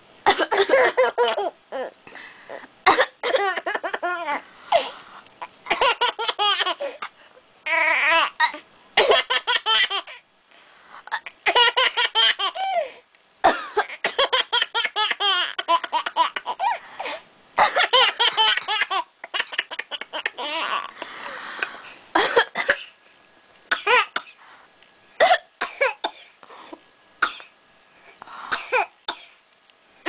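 A 10-month-old baby laughing in repeated bouts, with short coughs from another person between them. The coughing is what sets off the baby's laughter.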